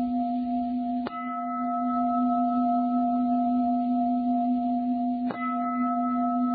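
A Buddhist bowl bell ringing with a steady tone of several pitches. It is struck again about a second in and once more about five seconds in, each strike renewing the ring.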